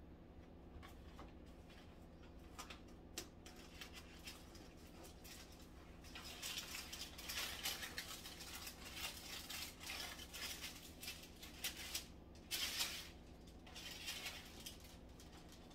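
Quick, irregular scraping strokes, such as food being scraped or scrubbed, starting about six seconds in and running until near the end, preceded by a few light clicks and knocks. A steady low hum lies underneath.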